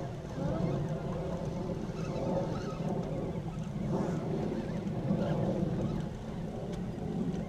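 Steady rushing of wind on the microphone and water moving around the hull of a small fishing boat at sea.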